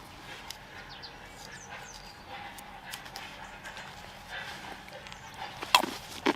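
Scattered crackling and rustling of dry leaves and spiny husks as sweet chestnuts are gathered by hand from the ground, with two sharp cracks near the end.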